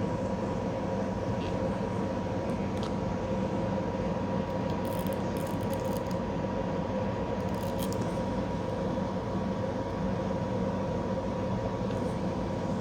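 Steady background hum with a few faint light clicks scattered through it.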